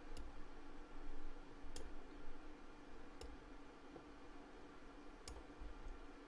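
Faint clicks of a computer mouse, about four, spread out over a low steady hum.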